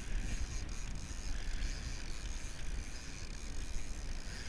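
Steady low rumble of wind and sea around a sportfishing boat, with wind buffeting the microphone and a hiss of water along the hull.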